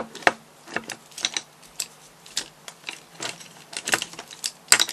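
Sugarcraft modelling tools and paintbrushes clicking and clattering against each other as a hand rummages through them, in quick irregular clicks with a sharper knock near the end.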